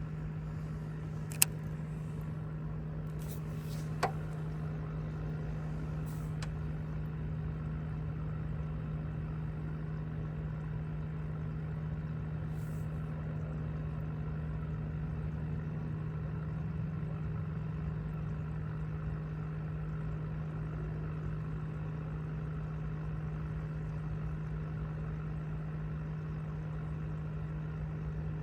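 Boat motor running steadily with a constant low hum. Two sharp clicks sound in the first few seconds.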